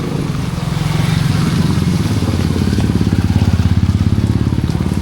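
A motor vehicle engine running close by, its low pulsing note growing louder to a peak about three to four seconds in and then easing off. Heavy rain hisses steadily underneath.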